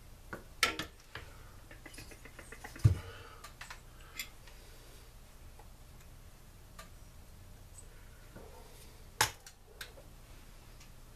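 Tools and metal engine parts of a two-stroke blower engine clinking and knocking on a workbench during teardown. The scattered clicks and taps include two sharper knocks, about three seconds in and about nine seconds in.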